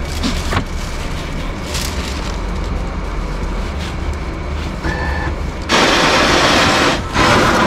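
Franke bean-to-cup coffee machine: a short beep about five seconds in as a drink is chosen on its touchscreen, then a loud grinding noise as it starts making the coffee, pausing briefly and starting again near the end.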